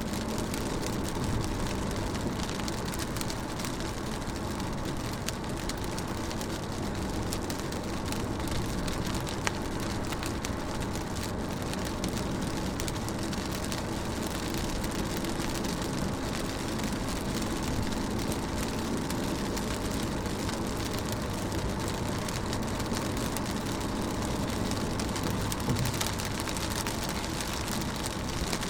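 Rain falling on a car window: a steady hiss dotted with many small drop taps over a low rumble.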